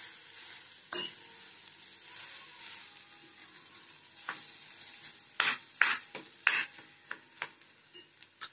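Mashed potato and onion filling frying in a black iron kadai with a steady light sizzle, stirred with a steel spoon that scrapes and knocks against the pan, a handful of times and more often in the second half.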